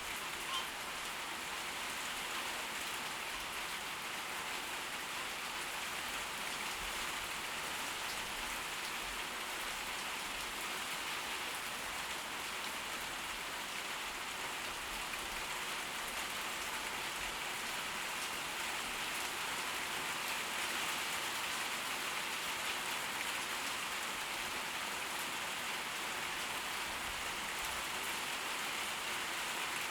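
Steady rain from a tropical storm, falling evenly without a break.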